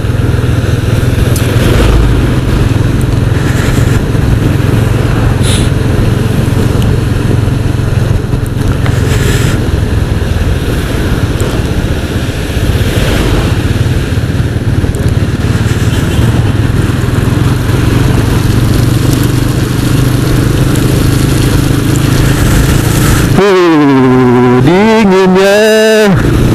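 Motorcycle riding on a wet road: the engine's steady drone under a constant rush of wind and tyre noise. Near the end a pitched sound wavers up and down for a couple of seconds.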